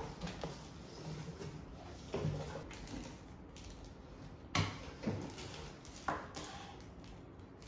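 Cardboard shipping box being opened and handled, its flaps rustling and scraping, with a few sharp knocks, the loudest about halfway through, and a small item set down on a tabletop near the end.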